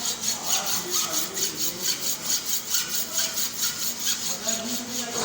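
Hand hacksaw cutting metal in quick, even back-and-forth strokes, about four to five rasps a second.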